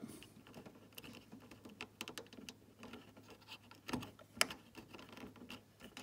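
Faint, scattered small clicks and scratches of fingers pushing tiny plastic front-panel switch connectors onto motherboard header pins and handling their thin cables, with a couple of sharper ticks about four seconds in.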